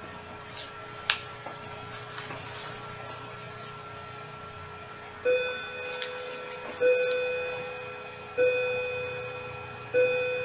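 A bell-like chime struck four times at the same pitch, about a second and a half apart, each stroke ringing and fading; it starts about five seconds in. Before it, a faint steady high whine and one sharp click about a second in.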